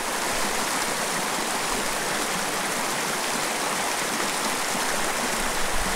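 Small, shallow mountain creek running over a rocky riffle: a steady rush of water.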